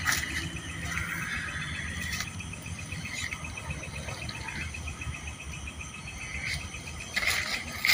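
Night crickets chirping, a high, rapid, evenly pulsed trill that keeps going throughout. Near the end comes a brief burst of louder, noisier sound.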